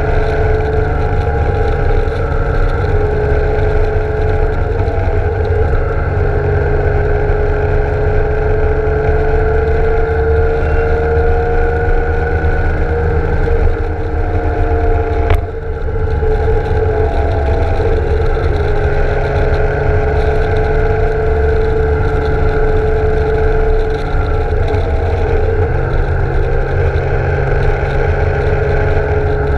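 BMW K1600 GTL's inline-six engine running at road speed, its pitch rising and falling gently with the throttle through the bends, under heavy wind noise on the mounted camera's microphone. A brief click and dip in level come about halfway through.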